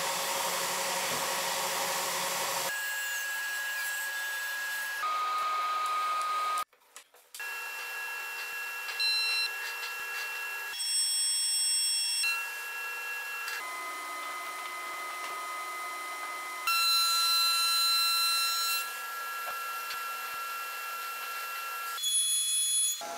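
Woodshop power tools running in a string of short takes that start and stop abruptly. A belt sander's broad noise fills the first couple of seconds, then a thickness planer and other machines give steady whines of shifting pitch from take to take, with a brief gap about seven seconds in.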